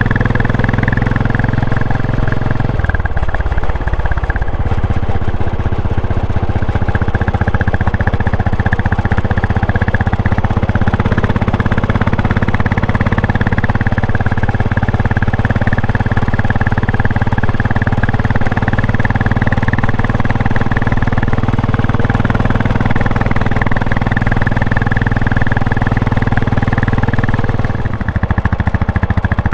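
A Royal Enfield Classic 500's single-cylinder engine running steadily while the bike is ridden. The engine note shifts briefly about three seconds in and changes again near the end.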